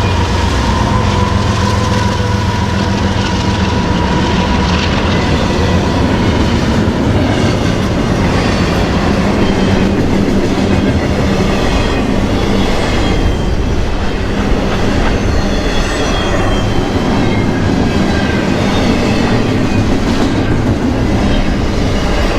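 Freight train passing close by: diesel locomotive engines running under the steady clatter of steel wheels over the rail joints, with faint high wheel squeal now and then.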